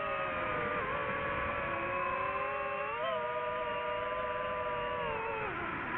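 DJI FPV drone's motors and propellers whining in flight, the pitch shifting with throttle: a brief dip about a second in, a rise about three seconds in, and a falling pitch near the end.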